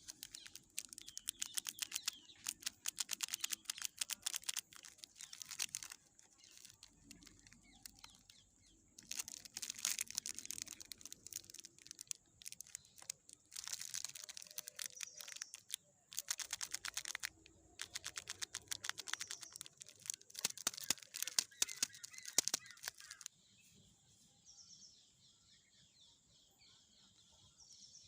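Plastic snack wrappers crinkling and crackling as they are handled, in irregular bursts that stop about 23 seconds in. Faint bird chirping can be heard after that.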